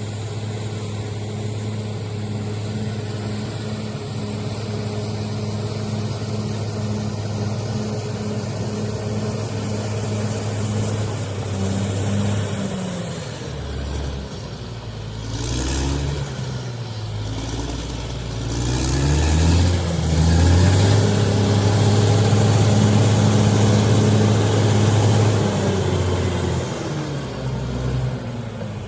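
Heavy diesel machine engine running steadily at first, then revved up and down repeatedly, working hard and loudest for several seconds near the end before easing off. A thin high whine sits above it.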